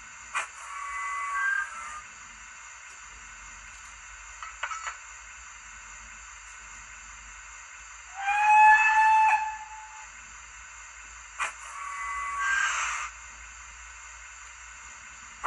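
Steam locomotive sounds from the DCC sound decoder and small speaker in an OO gauge Bachmann 94XX pannier tank model: a steady hiss of steam, with a whistle blast about 8 s in lasting about a second and a half, the loudest sound. Short clicks and brief tone sequences come shortly after the start and again about 12 s in.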